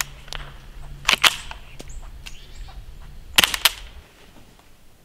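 Ruger 10/22 with a KG-Made EOS-22 integrally suppressed barrel firing subsonic .22 LR, very quiet: two shots, about a second in and about three and a half seconds in, each a short double crack. Faint bird chirps.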